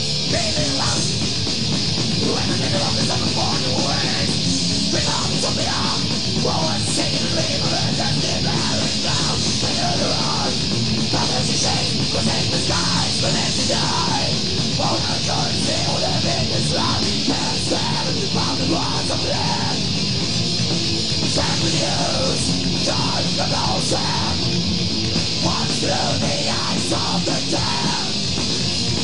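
A heavy metal band playing live: distorted electric guitars and a drum kit with crashing cymbals, loud and dense throughout.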